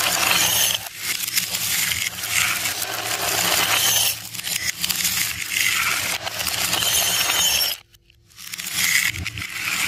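Dozens of marbles poured from a scoop clatter down a Haba wooden slope with coloured rungs and crash into a glass dish heaped with marbles. The dense clatter breaks off briefly about eight seconds in, then a second pour starts.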